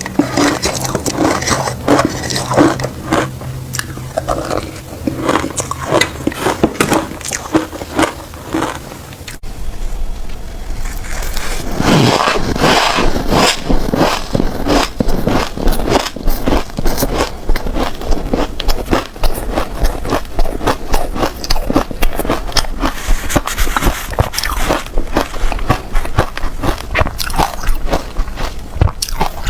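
Close-up biting and crunching of matcha-covered shaved ice: a dense, continuous run of crisp cracks and crackles. About nine seconds in the sound cuts abruptly and a steady low hum runs underneath the crunching.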